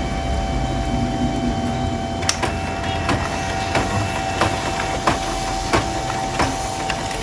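Canon i-SENSYS MF3010 laser printer running a copy: a steady motor whine over a low hum. From about two seconds in there are regular clicks about every two thirds of a second as a sheet feeds through and is pushed out.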